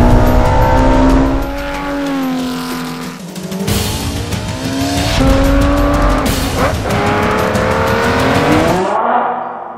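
Ferrari 458 Italia's 4.5-litre V8 accelerating hard through the gears, its pitch climbing and then dropping at upshifts about four and six seconds in. The sound fades out near the end.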